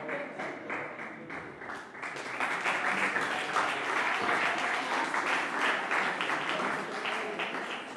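A room of people applauding, the clapping growing louder about two seconds in and staying strong.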